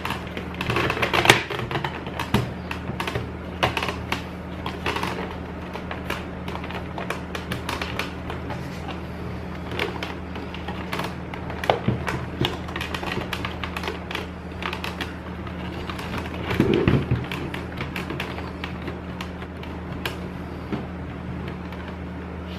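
Scattered clicks, taps and rustling from handling a toy helmet and its packaging, over a steady low electrical hum.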